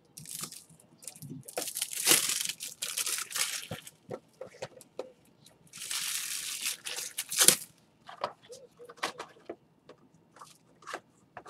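Plastic wrapping on trading card packs being torn open and crinkled, in two stretches a couple of seconds long, with scattered clicks and taps of handling in between.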